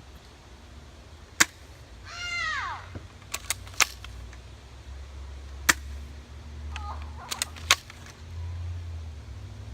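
Airsoft gun firing, a series of about eight sharp snaps at uneven intervals, some fired in quick clusters of two or three.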